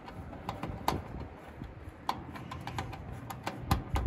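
Light, irregular clicking and tapping of a metal hand tool and spade connectors against the terminals of an HVAC dual run capacitor, a few clicks a second.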